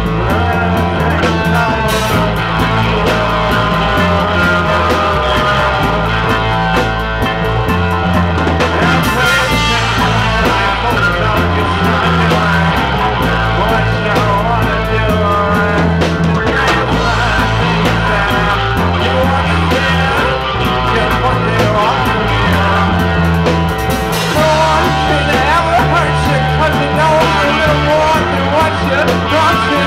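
Live reggae band playing: electric guitar, bass guitar, keyboard and drum kit, with a man singing lead over them. The bass line repeats in a steady pattern of notes about every second.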